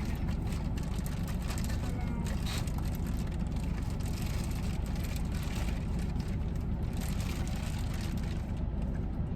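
Steady low hum of a car's idling engine and air-conditioning fan, heard from inside the cabin, with scattered small clicks and rustles of food being handled.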